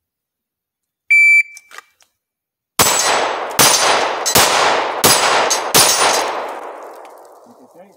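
A shot timer's high start beep, then five handgun shots fired in quick succession about three-quarters of a second apart. The echo trails off over a couple of seconds after the last shot.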